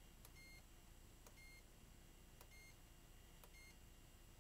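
A digital multimeter's continuity beeper giving short, quiet beeps about once a second. Each beep follows a faint click as a toaster control board's push button is pressed and its contact closes.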